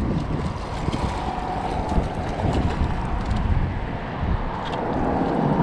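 Wind buffeting the microphone, an uneven low rumble over a steady outdoor hiss.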